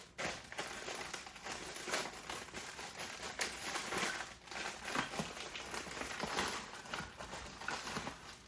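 Plastic crinkling and rustling as it is handled, with many small clicks and ticks throughout.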